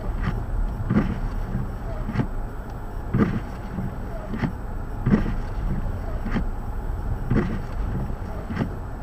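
Wind in a blizzard rumbling on the microphone, with regular crunching steps about once a second, as of someone walking through snow.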